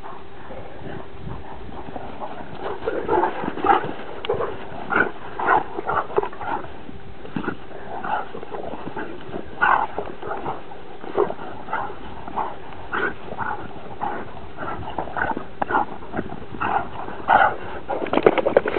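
Two dogs, a Transylvanian hound and a bloodhound, play-fighting, with many short, irregular dog vocalisations coming in quick succession from about two seconds in.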